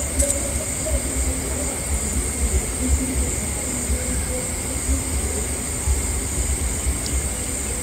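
Night ambience: a steady, high-pitched insect chorus over a low, uneven rumble.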